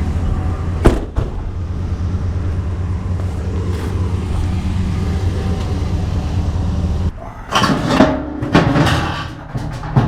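Car running with a steady low rumble, with one sharp knock about a second in. The rumble cuts out about seven seconds in, followed by several loud clattering knocks.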